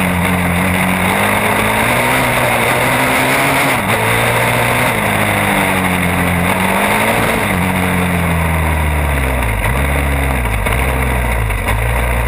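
Sport ATV engine under way, its pitch rising and falling with the throttle, then easing off about eight seconds in to a lower, uneven rumble as the quad slows.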